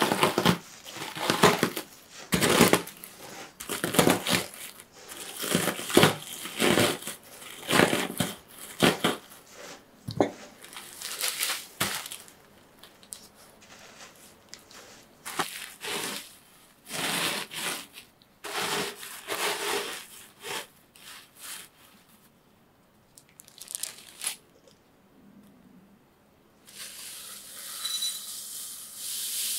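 Biscuits being crushed in a plastic bag with a wooden rolling pin: repeated bursts of crunching biscuit and crinkling plastic, with short pauses between strokes. Near the end, a steady rustle as the crumbs are poured from the bag into a glass bowl.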